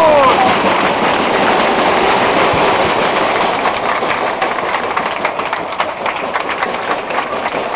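Football spectators cheering and applauding a goal. A shout of voices at the start gives way to dense clapping, which slowly fades.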